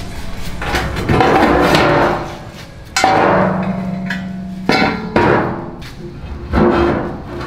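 Steel cook-chamber door panel, cut from a propane tank, being worked free and handled. A scraping rush about a second in, then three sharp metal knocks and clangs; the first rings on for more than a second.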